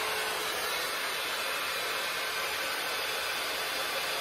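BaByliss hot-air brush styler blowing steadily while drying a section of hair, a constant even rush of air with no change in pitch or level.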